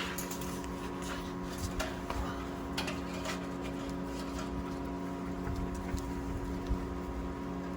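Steady electrical hum in a workshop, with a few scattered light clicks and taps from parts being handled.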